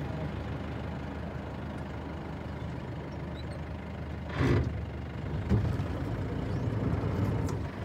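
Engine of an open-top tow jeep running steadily. About halfway through there is a brief rush of noise, followed a second later by a single sharp knock.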